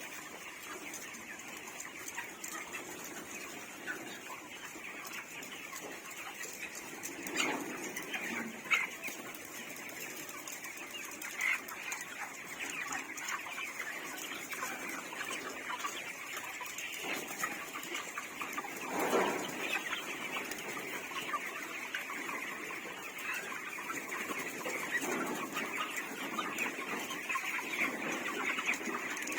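A large flock of 28-day-old farm chickens clucking and chirping all together in a steady, dense chatter, with a few louder single calls standing out now and then.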